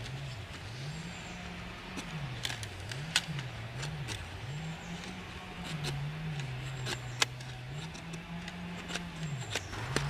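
A knife blade shaving and scraping thin curls from split wet wood onto a board: soft scraping strokes broken by sharp ticks and clicks, the loudest about three and seven seconds in. Under it runs a low drone that wavers up and down in pitch.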